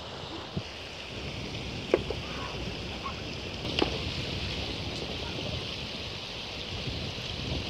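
Riverside ambience: a steady rush of flowing river water with wind rumbling on the microphone, broken by a few sharp clicks, the loudest about two seconds in and another near four seconds.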